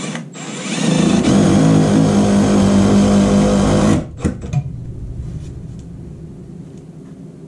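Cordless drill with a long bit extension drilling into a wooden wall: its motor starts about a second in, runs at a steady speed and pitch for about three seconds, then stops suddenly. A couple of short knocks follow.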